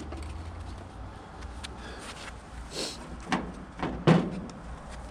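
Four short knocks and clunks of hands and tools working, spread over about a second and a half from around three seconds in, the last the loudest, over a low steady rumble.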